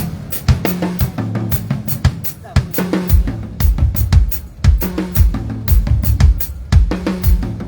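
Drum kit played in a steady, fast beat, with kick drum, snare and cymbal hits and held low notes sounding underneath.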